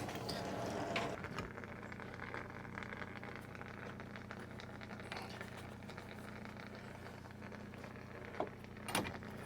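Faint steady low hum with light crackling, and a couple of small knocks near the end.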